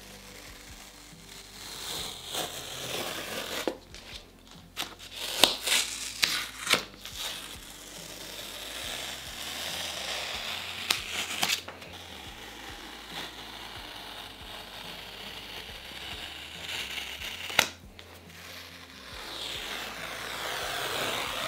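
Green masking tape being peeled off paper around the edges of a painting: stretches of crackly ripping, with a few sharp snaps.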